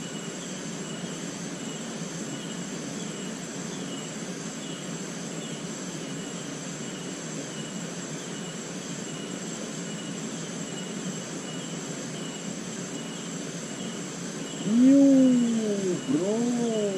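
Steady outdoor insect chorus, with high ringing bands and a regular chirp repeating through it. About two seconds before the end a man's voice breaks in with a couple of short up-and-down exclamations.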